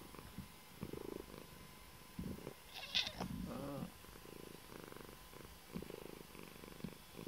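Domestic cat purring close to the microphone while being stroked on the head, the purr coming in swells about once a second with its breathing. About three seconds in, a brief louder noise cuts in over the purr.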